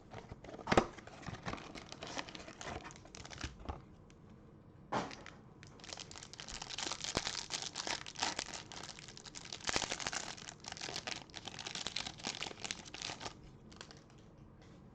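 Plastic wrapping of a trading-card hanger box crinkling and tearing as it is opened, with a sharp knock about a second in and another about five seconds in, then a long stretch of dense crinkling.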